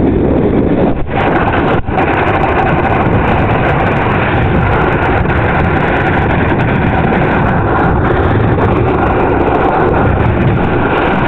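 Strong wind rushing over the camera microphone: a loud, steady roar, dipping briefly twice near the start.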